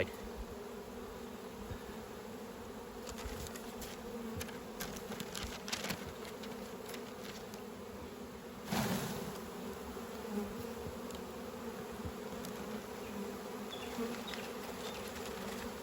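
Honeybees humming steadily around an open hive. Scattered knocks and a louder thump about nine seconds in come from shaking bees off the frames into a jar.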